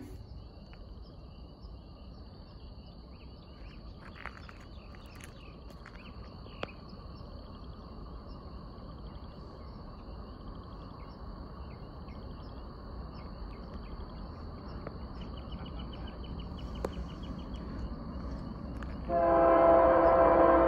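Union Pacific freight train approaching from a distance: a low rumble that grows slowly louder under background chirping. Near the end the locomotive's multi-note air horn sounds loud and steady.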